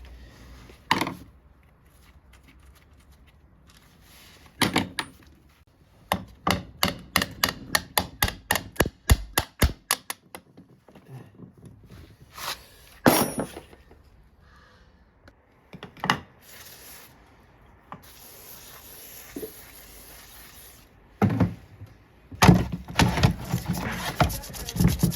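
Hand tool, most likely a hammer, knocking on metal engine parts: scattered single knocks, then a run of about a dozen quick taps at roughly three a second, then more single knocks, as a stubborn part is worked loose during an engine strip-down.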